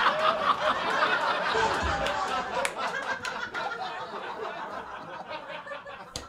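Comedy club audience laughing at a punchline, the laughter gradually dying down.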